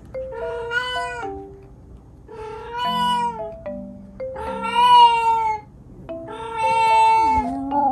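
A cat yowling four times, long drawn-out meows of about a second each, spaced about two seconds apart. These are insistent calls for an owner who is out of sight.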